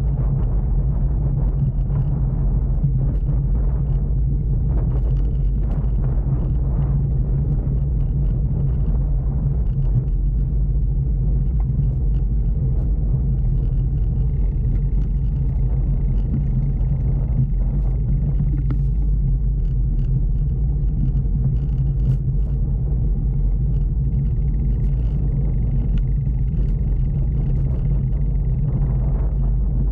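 Steady low rumble of a bicycle rolling along a wooden plank boardwalk.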